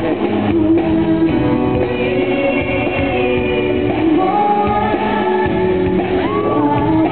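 A woman singing live into a handheld microphone, backed by a live band on keyboard and electric guitar; her voice holds and bends long notes.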